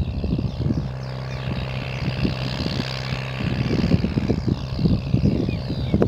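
Leyland 462 tractor's four-cylinder diesel engine running steadily under ploughing load, a constant low drone, with irregular low rumbles over it that are stronger in the second half.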